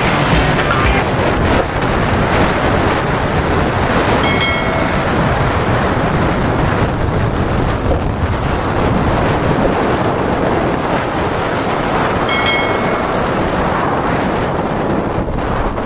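Steady wind rush on the microphone of a camera on a moving motorcycle, mixed with the motorcycle's running and road noise. Two short beeps cut through, about four seconds in and again about twelve seconds in.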